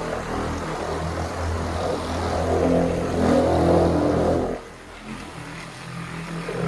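Electric paint polisher running against a car's painted panel, buffing out orange peel: a steady motor hum with a grainy rubbing sound that grows louder, then drops sharply about four and a half seconds in as the motor runs on more quietly.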